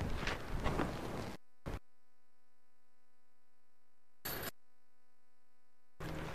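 Outdoor noise for about the first second and a half. Then the sound track drops out to a faint steady electronic hum, a recording glitch, broken twice by brief bursts of noise, and the outdoor sound comes back near the end.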